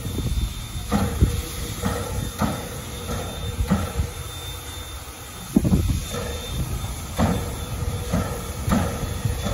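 Western Maryland Scenic Railroad No. 1309, a 2-6-6-2 articulated steam locomotive, idling and puffing: short irregular puffs about once a second over a steady hiss, the strongest about five and a half seconds in.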